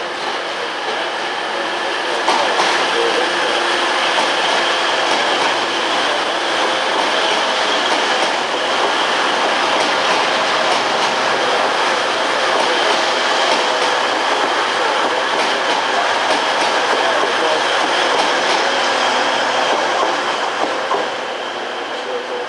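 A train running past on the rails, its steady rumble and rail noise building about two seconds in, holding, and easing off near the end.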